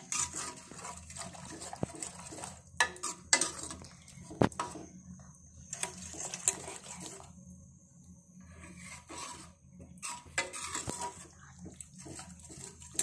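Metal ladle stirring thick sambar in a metal pan, with irregular clinks and scrapes of the ladle against the pan.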